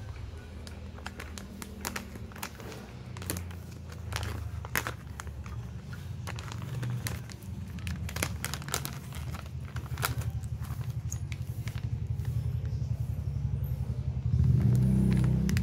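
Plastic packaging of a self-heating rice meal kit crinkling and rustling as it is handled and torn open, with scattered sharp clicks. A low rumble runs underneath and grows louder near the end.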